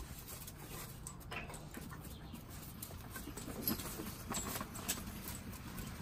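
Young Great Dane puppies scuffling and playing on brick pavers: an irregular patter of paws and nails with small knocks and scuffs, the sharpest a little past halfway.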